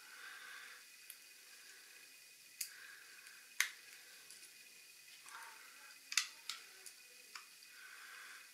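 Needle-nose pliers squeezing a small metal crimp terminal onto a wire, making a few sharp little clicks and snaps, the loudest about three and a half seconds in and a close pair around six seconds.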